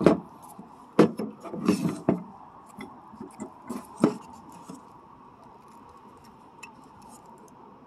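Sharp clicks and knocks with light rustling as a Polk Audio satellite speaker is handled on a tabletop and clear speaker wire is worked into its spring-clip terminals. The handling goes quiet about halfway through.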